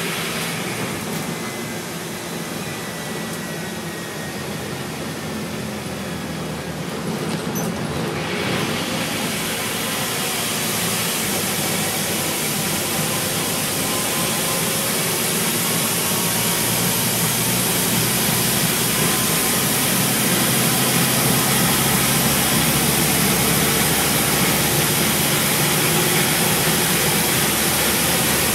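Scania N230UB single-decker bus's five-cylinder diesel engine and running noise, heard from inside the saloon. The noise grows steadily louder from about eight seconds in as the bus gathers speed.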